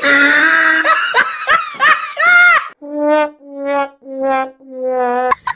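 Comedy sound effects: a snickering laugh track over a brass note, then a sad-trombone 'wah-wah-wah-waaah' of four notes stepping down in pitch, the last one held longest.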